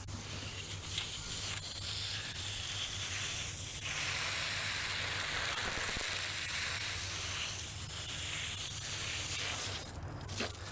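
Water spraying hard from a garden hose nozzle onto a plastic tail light lens, a steady hiss as it blasts out the sanding sludge left by wet-sanding. The spray stops shortly before the end.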